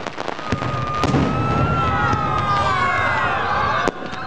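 New Year fireworks going off: several sharp bangs, and from about a second in, a cluster of whistling tones that waver and glide slowly down in pitch for a few seconds.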